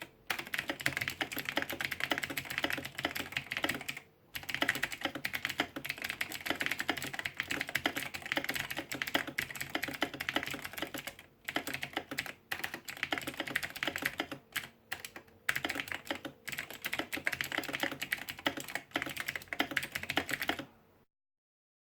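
Fast typing on a computer keyboard at about 100 words a minute: a dense, continuous run of key clicks. It breaks off for a few brief pauses along the way and stops just before the end.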